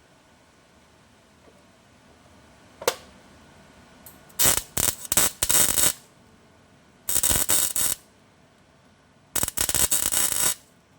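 Welder laying tack welds on thin car-body steel: three short, crackling bursts of about a second each, in the second half. A single sharp click comes about three seconds in.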